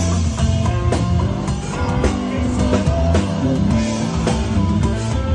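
Live rock band music: an electric guitar playing a run of notes over a drum kit beating steadily.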